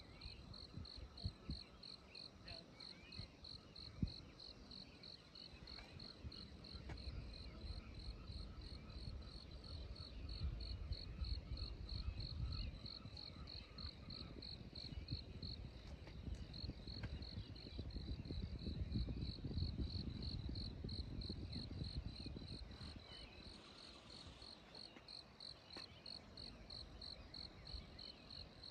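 Insects chirping in a high, even pulse of several chirps a second, pausing briefly about halfway through. Low rumbling swells come and go in the middle.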